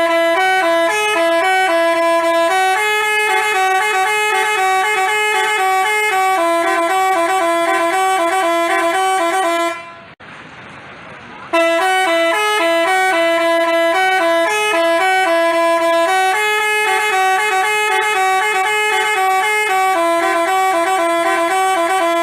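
Basuri telolet bus horn, a multi-tone musical horn, playing a melody of stepped notes. Midway the tune stops for about a second and a half, then the same melody starts over.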